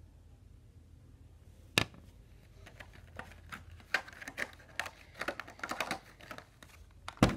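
Weiye plastic fineliner pens clicking and rattling against each other and their clear plastic case as they are handled. One sharp click about two seconds in, a run of quick light clicks through the middle, and two loud clicks at the very end.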